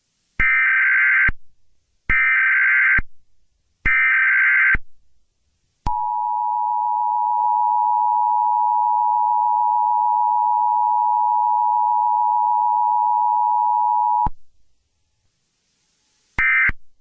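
Emergency Alert System tones. First come three bursts of SAME digital header data, about a second each, then the steady two-tone EAS attention signal, held for about eight seconds. A shorter data burst starts just before the end.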